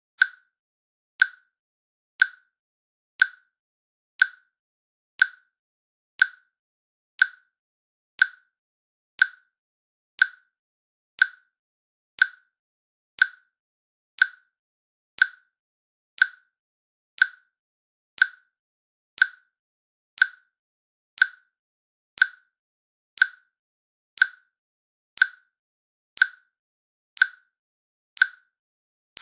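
Countdown timer ticking with one short, sharp click every second, evenly spaced. Each click has a slight pitch and dies away quickly.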